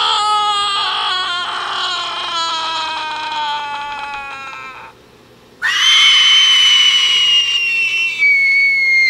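Two recorded human screams played from a scream sound-effect soundboard app. The first is already under way; it wavers and slides down in pitch, then stops about five seconds in. After a short break, a second, higher scream comes in and holds its pitch, sagging slightly.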